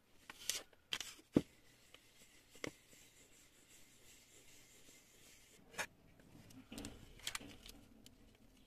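Quiet rustling of a thin plastic sheet, with a few sharp clicks and knocks, the clearest about a second and a half in, as a household iron is worked over the sheet to fuse small Hama bead pieces.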